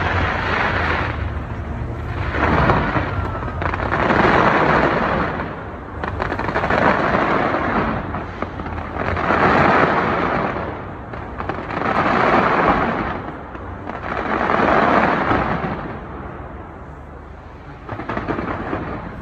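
Fireworks display going off in a dense barrage: waves of crackling, explosive noise swell up about every two and a half seconds over a steady low rumble, easing briefly near the end before another wave.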